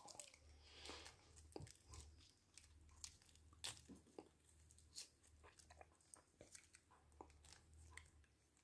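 Faint, scattered crinkles and small clicks from a plastic action figure and its clear plastic wrapping being handled, over a low room hum.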